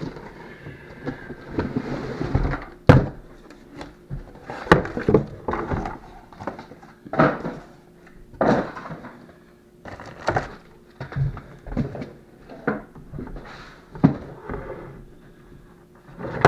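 Unboxing and handling noises: cardboard and packaging rustling and scraping, with irregular knocks and thumps as a cordless chainsaw and its parts are lifted out and set down on a wooden table.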